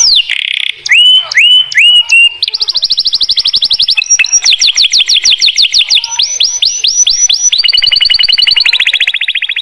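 Domestic canary singing: a few slow rising whistles in the first two seconds, then a string of rapid trills of quick repeated notes, each run at a different pitch and speed.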